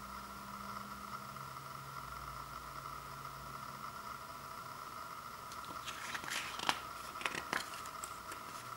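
Paper pages of a CD booklet rustling and flicking as fingers turn them: a short run of crackles and soft taps in the last three seconds, over a steady background hum.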